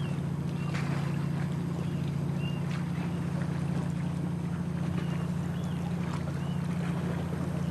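A steady low motor hum, with faint splashes from kayak paddles and a few short, high chirps scattered through.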